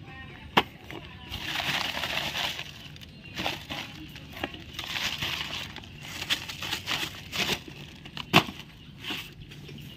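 Handling of a wire-mesh snake trap wrapped in a plastic feed sack: rustling plastic in several bursts and metal clinks and rattles, with two sharp knocks, one about half a second in and one about eight seconds in.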